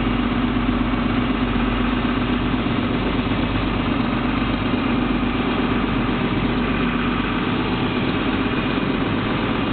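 John Deere 8630's 619-cubic-inch six-cylinder diesel idling steadily with an even hum, heard from inside the cab, still warming up after a cold start at about 30°F.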